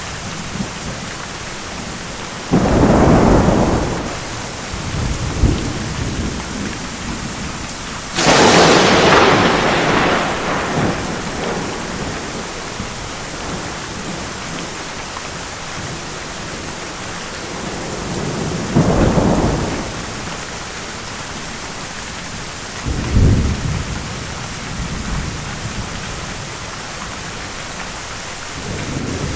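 Steady rain falling, with thunder breaking over it four times: a rumble about three seconds in, the loudest and sharpest crack about eight seconds in that rolls off over a few seconds, then two lower, shorter rumbles later on.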